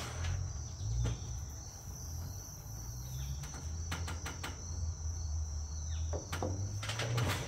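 A steady high-pitched insect drone, with a few light knocks on the wooden roof frame about four and six seconds in, over a low rumble.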